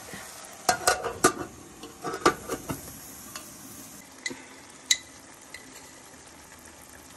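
Metal pot lid clattering against the rim of a cooking pot as it is handled and set down, a quick run of knocks in the first three seconds, then two ringing metal clinks around four and five seconds in, over a steady faint hiss.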